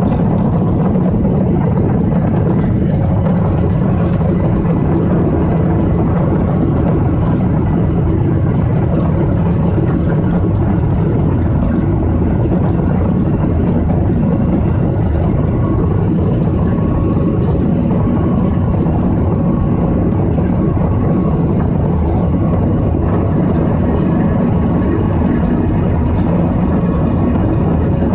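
Jet airliner's engines and rushing air heard inside the cabin during the climb after takeoff: a loud, steady, deep drone.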